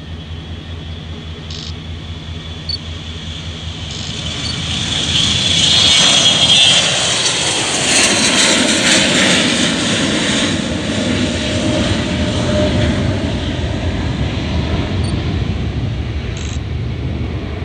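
Gulfstream G550's twin Rolls-Royce BR710 turbofans at takeoff power. The sound builds from a low rumble to a loud rush with a high whine as the jet lifts off and passes, loudest about six to ten seconds in, then drops in pitch and fades as it climbs away.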